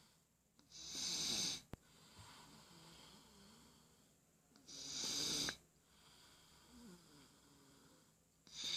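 A sleeper snoring in a slow, even rhythm: three loud, hissy snoring breaths about four seconds apart, with softer breathing between them. There is a brief click just before two seconds in.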